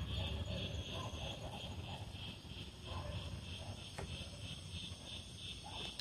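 Crickets chirping in a steady, even pulse of about four chirps a second, over a faint low rumble of open-air background.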